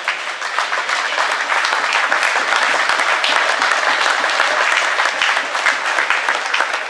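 Audience applauding, a dense and steady clatter of many hands clapping.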